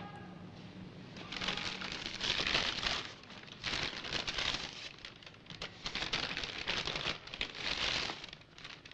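A paper fast-food bag rustling and crinkling as it is opened and a wrapped burger is pulled out of it. It comes in about four bouts, starting about a second in.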